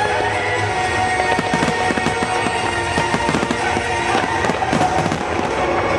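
Fireworks shells bursting and crackling in rapid succession, many reports a second from about a second in, over music playing throughout.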